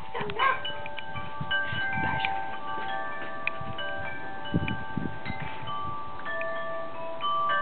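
Metal tube wind chime ringing: many clear tones at different pitches, struck at irregular moments and overlapping as they ring on. A few soft low thuds come about halfway through.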